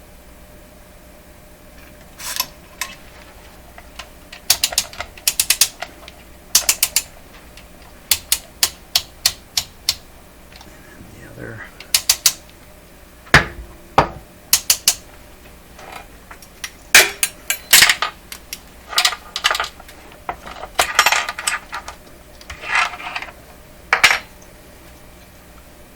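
Oscilloscope snap switch being flicked back and forth by hand: sharp metallic clicks in quick runs, repeated many times, to work contact cleaner into its contacts.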